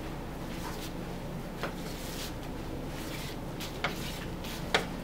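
Knife trimming a boneless beef chuck roll on a wooden cutting board: quiet slicing through meat, with three short sharp clicks, the loudest near the end.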